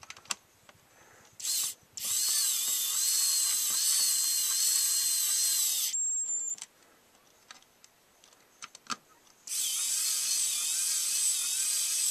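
Small battery-powered cordless screwdriver motor whirring in runs: a short blip, then two runs of about four seconds each. The whine wavers in pitch, with light clicks between runs, and sounds a little weak.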